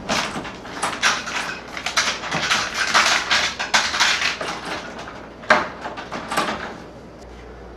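Rustling and small clattering knocks of things being handled at a door, an irregular run with one sharper knock about five and a half seconds in, dying down near the end.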